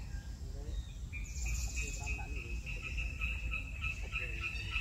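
Outdoor ambience: from about a second in, a high chirping call pulsing about four times a second, over a steady low rumble of wind on the microphone.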